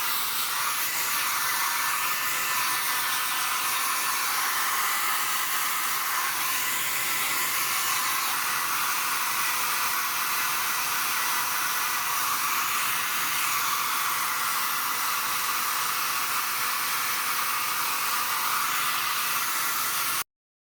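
Electric air blower running steadily: an even rush of blown air with a faint steady whine, cutting off suddenly near the end.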